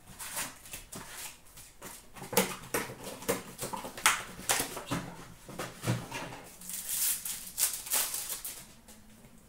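Upper Deck hockey card packs being handled and torn open: foil wrappers crinkling and cardboard rustling in a run of sharp crackles and taps, quietening near the end.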